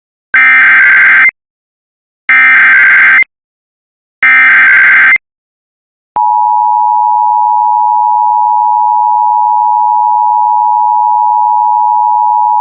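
Emergency Alert System header: three loud one-second bursts of shrill, warbling digital data tones (the SAME code), evenly spaced about two seconds apart. About six seconds in, the EAS attention signal starts: a steady, harsh two-note tone that holds without a break.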